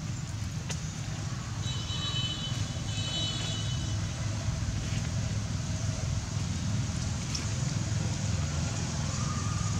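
Steady low outdoor rumble of background noise, with a brief high-pitched chirping sound about two seconds in.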